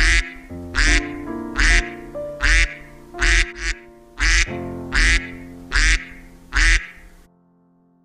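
Duck quacking over and over, about one loud quack a little under every second, over a background music tune with a low beat. The quacks and music stop about seven seconds in.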